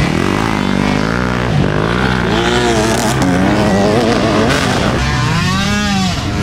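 Several dirt bike engines revving hard under load on a steep hill climb, their pitch rising and falling repeatedly as the riders work the throttle.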